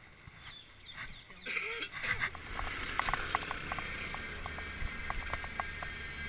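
Steady low rumble of wind and road noise picked up by a camera on a moving bicycle, beginning a couple of seconds in, with a scatter of short, high chirps over it.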